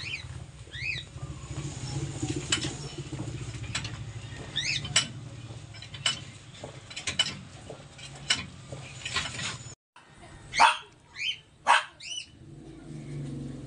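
A few short, high-pitched animal calls, each a quick rise and fall, like yips or chirps, mixed with scattered sharp clicks and clinks from hand work on the vehicle.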